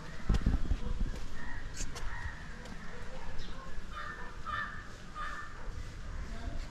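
Crows cawing, a few short caws past the middle, over outdoor street ambience. There are low thuds in the first second.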